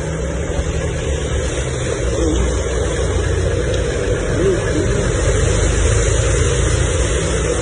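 A car engine running steadily under a constant rushing noise, with no sudden events.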